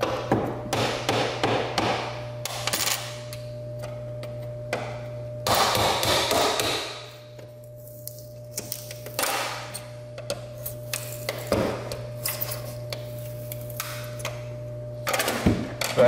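Hammer tapping in irregular runs of quick knocks, with a scraping rush about five and a half seconds in: a 1-inch electrical knockout being driven out.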